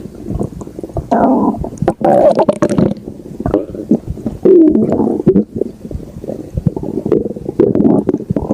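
Human stomach growling and gurgling: a run of irregular bubbling rumbles, each swelling for about a second, broken by quick clicks and pops.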